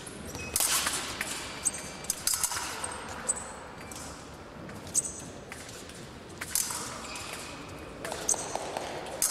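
Steel épée blades clicking and clashing against each other at irregular intervals, some contacts leaving a brief high metallic ring, with sharp knocks among them, in a reverberant hall.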